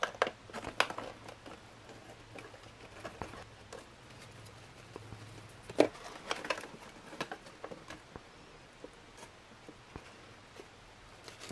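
Plastic spoon scraping rehydrated pasta out of a foil ration pouch onto a stainless steel tray: scattered soft clicks, taps and pouch crinkles, with a sharper tap about six seconds in.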